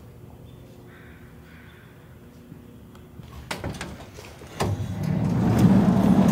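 A workshop door being opened by hand: a few sharp latch clicks about three and a half seconds in, then a loud rumbling scrape as the door slides open.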